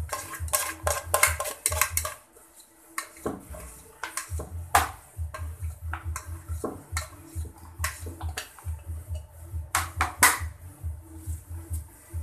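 A bowl clattering and knocking against a plastic basin in quick clusters as dry groundbait is tipped and shaken in. Under it runs background music with a steady low beat.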